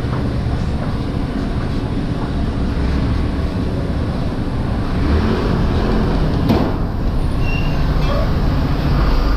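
Steady low rumble of street traffic. A passing vehicle rises and falls in pitch about five to six seconds in, followed by a single sharp click.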